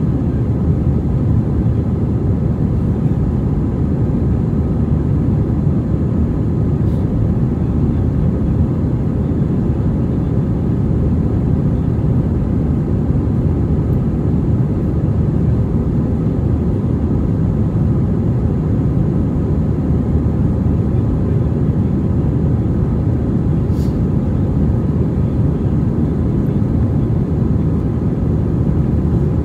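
Steady cabin noise inside an Airbus A320 climbing after takeoff: an even, low rumble of the engines and the airflow.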